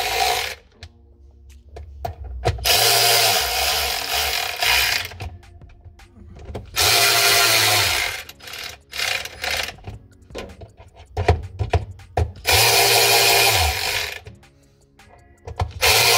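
Several one-to-two-second blasts from a small electric air blower, its motor spinning up and down with each blast, blowing dust off the instrument cluster before the cover goes on. Light clicks and knocks of handling come between the blasts.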